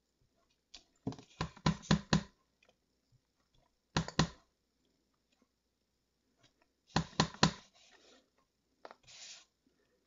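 Clear acrylic stamp block tapping on an ink pad and pressing onto cardstock: clusters of quick sharp clicks, several in a row about a second in, two about four seconds in and another run about seven seconds in. A brief paper rustle near the end.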